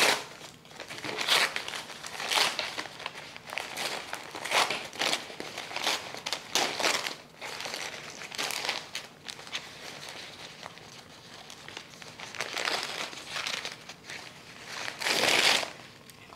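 Paper wrapping crinkling and rustling in irregular bursts as hands unwrap a plant, loudest near the end.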